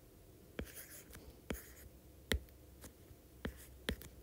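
A stylus tapping and sliding on an iPad's glass screen as numbers are handwritten: about six sharp taps, with faint scratching between them.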